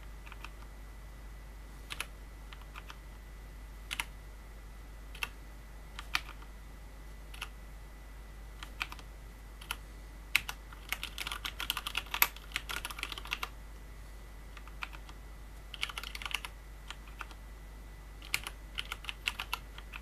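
Typing on a Cherry G80-3000S TKL keyboard with Cherry MX Brown tactile switches, PCB-mounted without a plate, and ABS keycaps. Single keystrokes come about a second apart at first, then a quick run of clatter lasting about three seconds in the middle, and shorter runs near the end.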